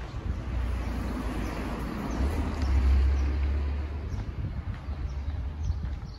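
City street traffic: a vehicle passing, its rumble swelling to a peak about three seconds in and then easing off.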